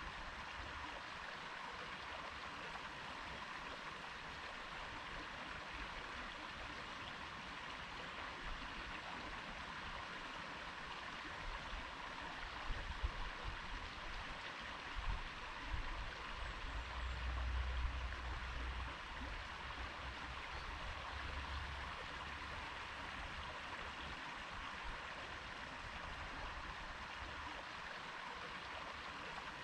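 A stream running steadily, its flow an even rushing babble. About halfway through, a low rumble swells and fades for several seconds.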